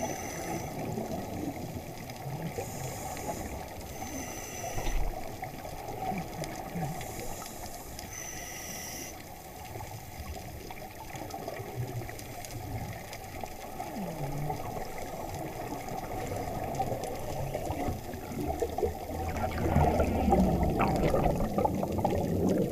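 Muffled underwater sound heard through an action camera's waterproof housing: a low rush of water with scuba divers' exhaled bubbles rising and gurgling past, louder over the last few seconds.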